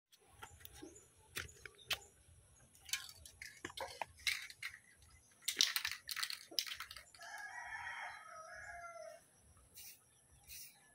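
A rooster crows once, a call of about two seconds starting about seven seconds in. Before it come scattered sharp clicks and scuffs.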